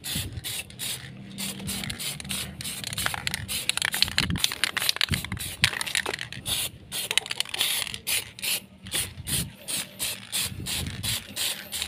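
Aerosol can of clear lacquer spraying in a rapid series of short hissing spurts, about four a second, over a low steady hum.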